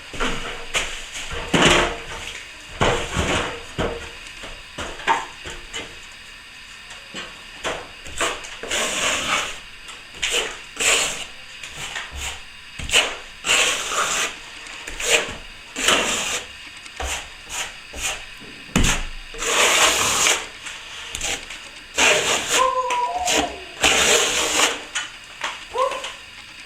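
A metal plastering tool scraping over plaster in irregular strokes, some short and a few lasting about a second. Near the end come a couple of brief squeaks.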